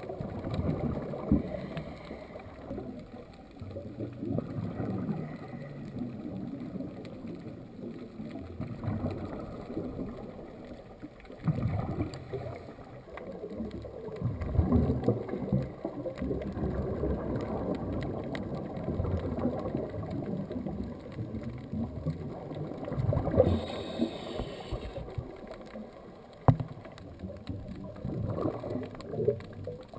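Underwater sound picked up by a diving camera: an uneven low rumble and gurgle of water moving in strong surge, swelling and fading, with a brief hiss a little over twenty seconds in.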